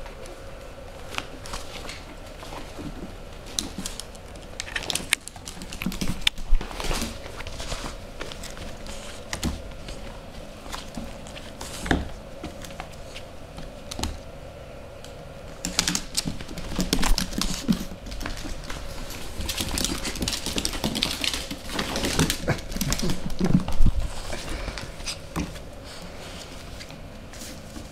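Puppies playing on a hardwood floor: claws clicking and scrabbling on the boards, with bumps and knocks. The scuffling is busiest about six seconds in and again through the middle and latter part.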